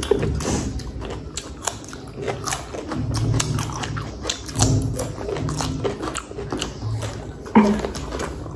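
Raw cucumber being bitten and chewed: crisp, irregular crunches, one after another.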